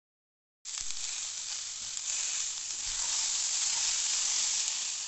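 Diced potatoes, carrots and green peas sizzling steadily in hot coconut oil in a stainless steel pan while being stirred, as they are sautéed to coat them in oil. The sizzle cuts in suddenly less than a second in.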